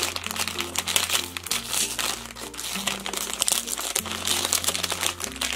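Plastic blind bag crinkling and rustling as hands squeeze it open and rummage inside, with irregular crackles throughout. Background music with a slow, stepping bass line plays underneath.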